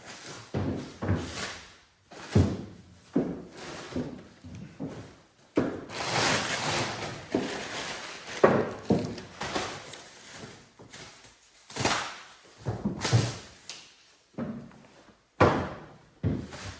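Heavy rubber pickup bed mat being shifted and flopped into a steel truck bed: a string of irregular thumps and knocks, with a longer scraping rustle about six seconds in.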